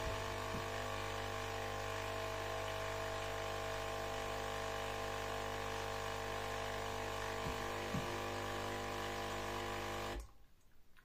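Aldi Ambiano capsule coffee machine's vibratory water pump buzzing steadily while its button is held down, then cutting off suddenly about ten seconds in.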